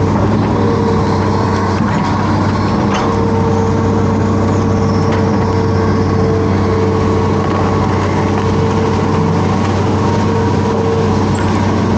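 Hitachi Zaxis 210F amphibious excavator's diesel engine running steadily, with a constant hydraulic whine over it and a few faint clicks from the working boom.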